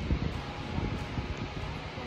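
Wind buffeting the microphone outdoors: a low, uneven rumble that swells and dips in small gusts.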